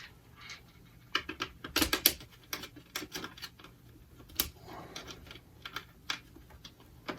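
Irregular clicks and taps of small screws being handled and driven by hand to fasten a switch panel in place, in small clusters with short gaps.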